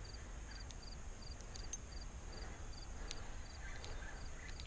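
A cricket chirping steadily and faintly, a short high chirp of about three quick pulses repeated roughly twice a second. A low rumble and a few faint clicks lie under it.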